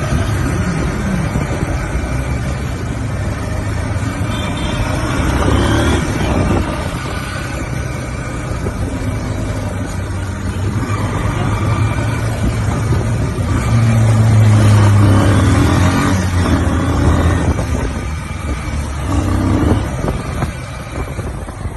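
Vehicle engine running in slow road traffic, its pitch rising and falling as it speeds up and eases off, with tyre and road noise. It is loudest about two-thirds of the way through.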